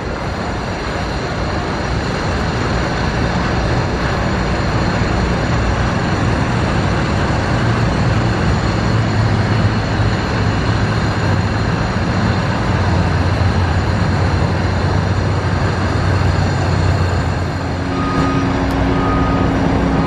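Heavy diesel construction vehicle running steadily amid construction-site noise, its deep hum strengthening in the middle. Short beeps about once a second start near the end.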